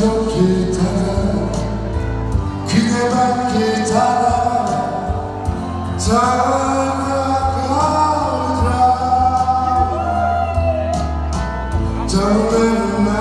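A man singing a Korean song into a handheld microphone over instrumental accompaniment, amplified through a PA, with long held notes that waver in pitch.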